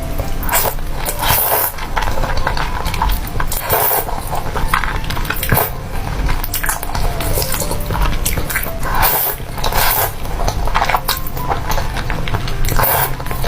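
Close-miked eating sounds: spicy noodles and enoki mushrooms being slurped and chewed, in irregular wet bursts.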